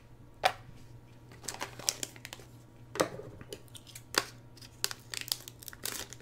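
Thin anti-static plastic bag crinkling as it is handled, with irregular sharp crackles, then scissors cutting into it near the end.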